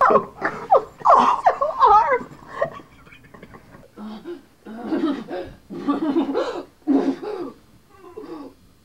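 People laughing, with sharp up-and-down slides in the voice in the first couple of seconds, then a run of short rhythmic laughs.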